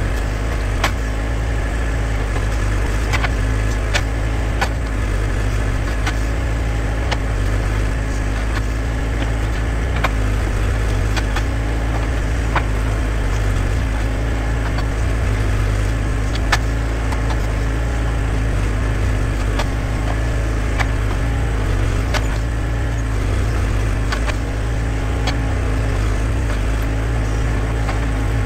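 Backhoe loader's engine running steadily while the backhoe arm digs and swings, with short sharp clanks every few seconds from the bucket and arm linkage.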